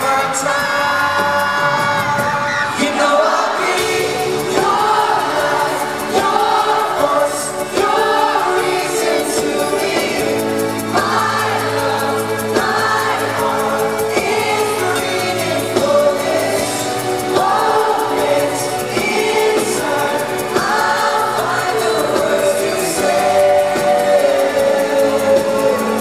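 Boy band singing a pop ballad live, several male voices in harmony into microphones over keyboard-led band backing, heard from the audience in an arena.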